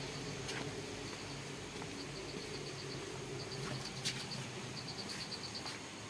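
Three short runs of rapid high chirps, several a second, from a small animal such as a bird or insect, over a steady low hum, with a few faint clicks.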